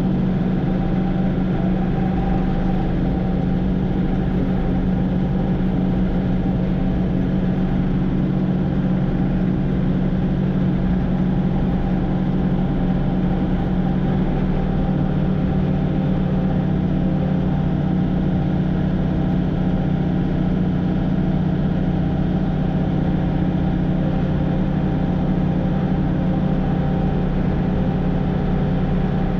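Combine's Perkins 354 diesel engine running steadily at an even speed, with a constant low hum and no change in pitch.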